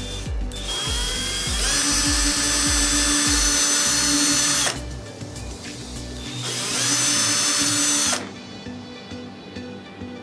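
Power drill with a thin twist bit boring into the end of a wooden pencil, run twice: a rising whine as it spins up, about four seconds of drilling, then a second run of about two seconds, each stopping with a falling pitch. Background music with a steady beat underneath.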